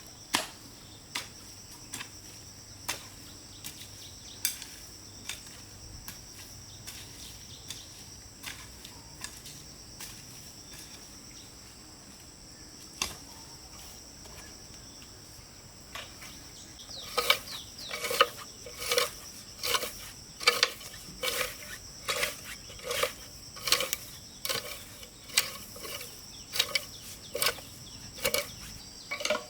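Steady high insect chirring, with scattered sharp knocks in the first half; from a little past halfway, a regular run of strikes at about one and a half a second, like a hand tool hitting repeatedly.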